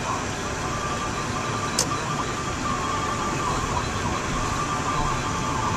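Car cabin noise while driving: a steady low road and engine rumble with hiss, a thin steady high tone, and a single sharp click a little under two seconds in.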